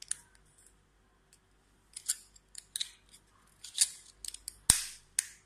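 Plastic back cover of a GT08 smartwatch being fitted and pressed into place over the battery: a series of short scrapes and clicks, with the sharpest snap near the end.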